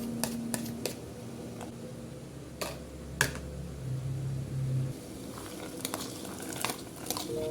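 Kitchen cooking sounds: a few sharp clinks and knocks of utensils against pans over a faint steady hiss of food frying.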